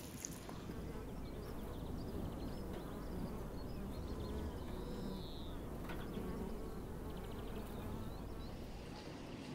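Bees buzzing around flowers, a steady low hum.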